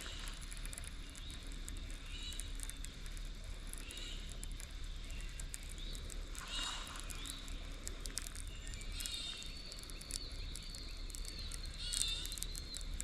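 Birds chirping on and off in short curved calls, with scattered faint clicks, over a steady low background hum.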